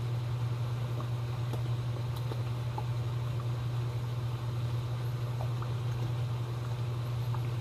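A steady low hum over the sizzle of a chicken and vegetable stir-fry cooking in a hot pan as sauce is squeezed into it, with a few faint crackles.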